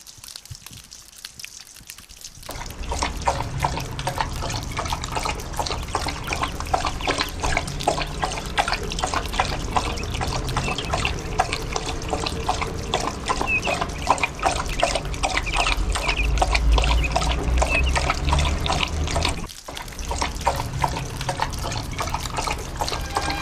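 A dog lapping water from a bowl: a fast, steady run of wet clicks and splashes that starts about two seconds in, with a short break near the end.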